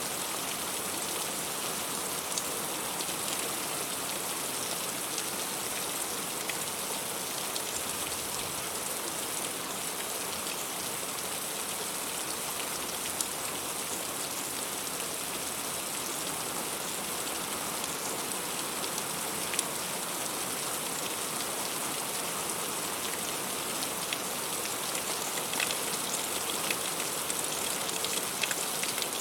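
Heavy rain falling steadily as a dense hiss, with sharp ticks of single drops scattered through it and more of them near the end.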